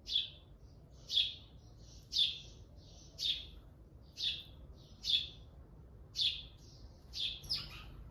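A bird calling over and over, a short high chirp repeated about once a second, with a few fainter notes between them.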